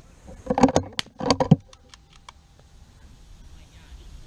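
The bolt of a bolt-action .22 rimfire rifle being worked, heard close up: two quick bursts of sharp metallic clicks about half a second apart, followed by a few faint ticks.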